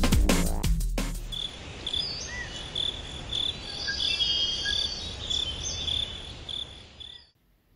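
The tail of a drum-and-bass track ends about a second in. Crickets then chirp steadily in a high, pulsing trill over a faint low hiss, and the sound cuts off suddenly near the end.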